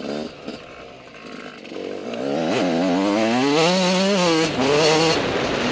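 Dirt bike engine revving up under acceleration: quieter for the first two seconds, then its pitch climbs and wavers, falls about four seconds in, holds briefly and eases off near the end.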